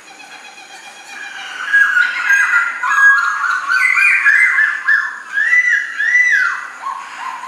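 Laughingthrush (khướu mun) singing: a fast run of varied whistled notes, faint at first and loud from about two seconds in, ending with a few arched notes that rise and fall.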